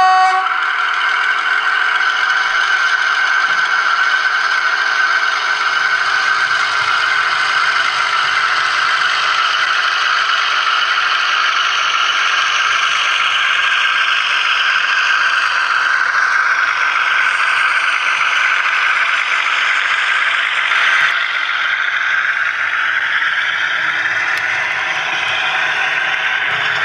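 DCC sound decoder in an OO gauge model of the Class 53 diesel Falcon, playing its engine running under power through the model's small speaker as it pulls away, with the rattle of the model's wheels over the track. The engine note swells in pitch partway through, then settles.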